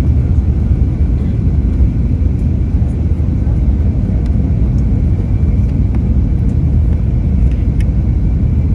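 Steady low rumble of airliner cabin noise aboard an Airbus A320-271N (A320neo), with a faint steady high-pitched tone above it and a few faint ticks.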